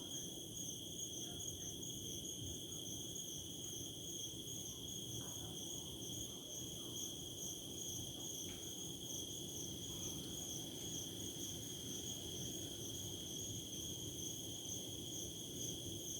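Crickets chirping at night in a continuous, steady high-pitched trill, over a low steady background noise.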